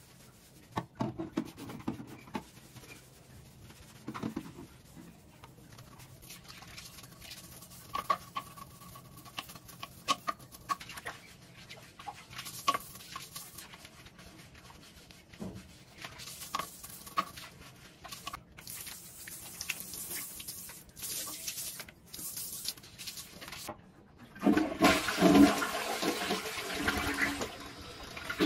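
A toilet bowl being cleaned, with scattered knocks and scraping of a brush against the ceramic, then the toilet flushes near the end with a loud rush of water into the bowl.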